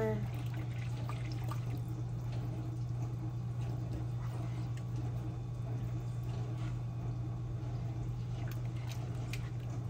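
A spatula stirring a thick cream sauce in a nonstick sauté pan: soft wet sloshing with faint light clicks, over a steady low hum.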